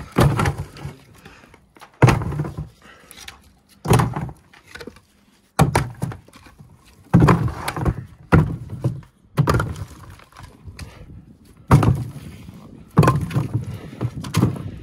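A series of about ten heavy thuds, roughly one every one to two seconds, each followed by a brief rustle.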